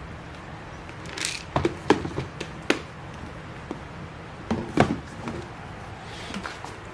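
A few scattered sharp knocks and clicks, like objects being handled and set down, with a short rustle about a second in; the loudest knocks come about two, three and five seconds in.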